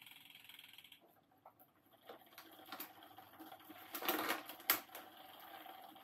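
Clicking and rattling of bicycle parts being handled and worked on, with two louder scuffs about four and four and a half seconds in.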